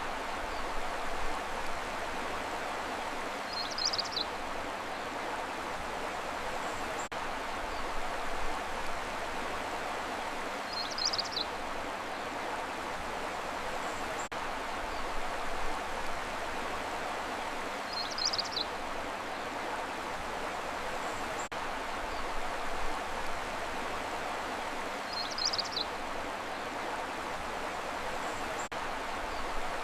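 Steady, even rushing noise, like running water, with a short high chirp about every seven seconds; the pattern repeats at the same spacing like a looped ambience track.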